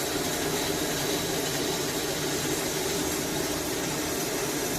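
Cooling fan of a 300 A inverter welding machine running steadily, with a faint high steady tone over the whir.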